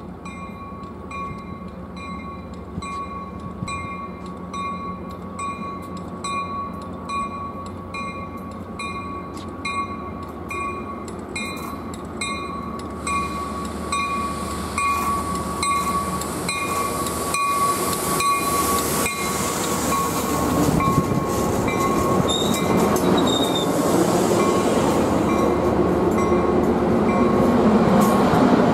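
Warning bell dinging steadily about twice a second while a train approaches. The train's running noise grows steadily louder through the second half.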